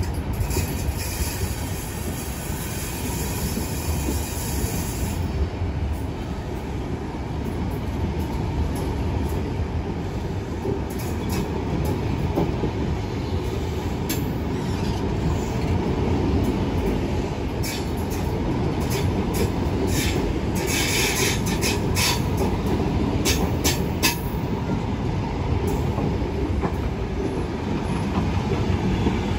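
Mk3 passenger coaches rolling slowly past on their way out of the station: a steady rumble of wheels on track, with clicks and short wheel squeals through the middle and later part, the longest squeal about two-thirds of the way through.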